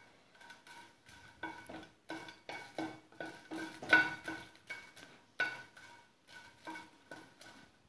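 Wooden spatula knocking and scraping against a nonstick kadai as it pushes dried red chillies around to dry-roast them, about two strokes a second. Each knock sets the pan ringing briefly, the loudest about four seconds in.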